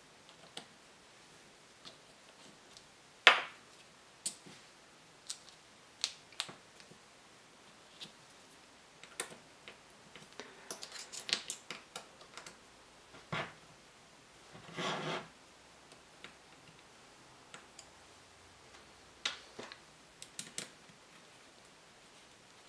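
Irregular clicks and light knocks from small metal engine parts and tools being handled on a workbench, with one louder knock about three seconds in and a short scrape about two-thirds of the way through.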